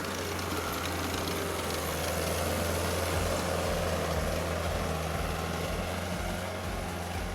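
Steyr tractor's diesel engine running steadily, a low drone.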